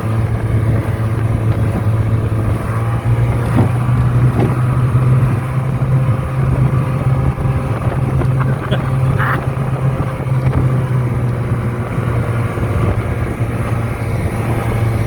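Outboard motor running steadily at speed, pushing a small boat over the water, with a couple of faint knocks about four seconds in.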